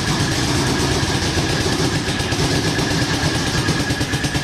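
An engine running steadily, a dense rapid pulsing with a faint steady whine, starting abruptly.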